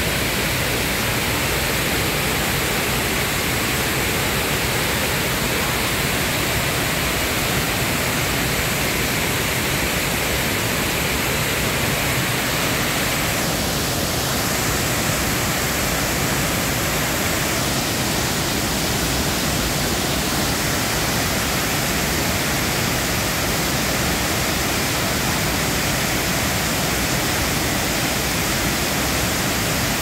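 Large cascading waterfall: a steady, loud rush of falling white water.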